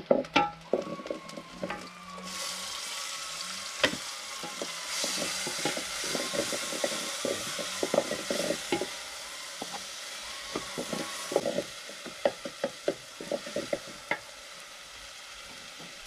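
Onions, tomatoes and carrots sizzling as they fry in a small pan, with a spoon clicking and scraping against the pan as they are stirred. The sizzle rises sharply about two seconds in and eases off about three-quarters of the way through, while the clicks of the spoon carry on.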